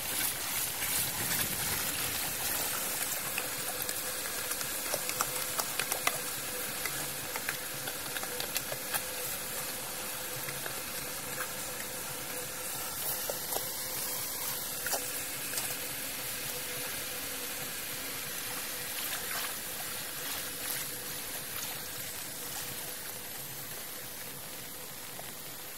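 Steady watery hiss of floodwater, with scattered small splashes and clicks.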